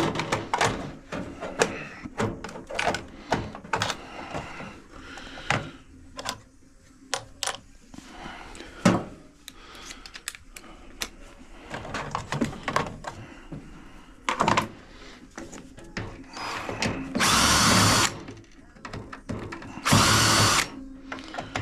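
Clicks, taps and clinks of metal tools and parts being handled, then a cordless power drill/driver run in three short bursts near the end, a steady motor whine each time, as screws are worked out of a microwave's sheet-metal casing.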